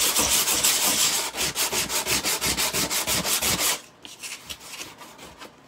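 Sandpaper rubbed by hand in quick back-and-forth strokes, about five a second, over a dried fabric papier-mâché puppet head to smooth its rough areas before gesso. The strokes stop nearly four seconds in, leaving only faint light rubbing.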